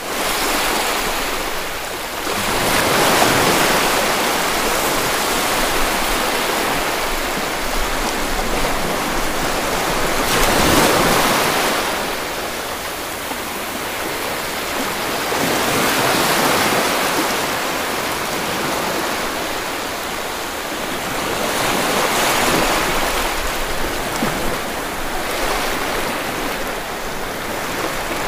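Loud, steady rushing noise with no tone to it, swelling and fading about every five to six seconds.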